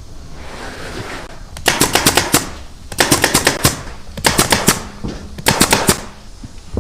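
Pneumatic upholstery staple gun firing in four rapid bursts of several staples each, the bursts a little over a second apart.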